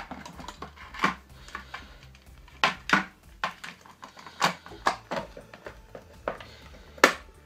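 Irregular knocks and clacks of an emergency light fitting's white housing being handled and set down against a wooden tabletop: about ten sharp taps, unevenly spaced.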